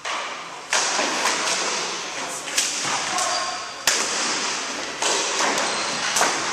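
Floor hockey sticks clacking against each other and slapping the hardwood gym floor as players fight for the ball after a faceoff: a series of about six sharp hits, echoing in the large hall, with players' shouts in between.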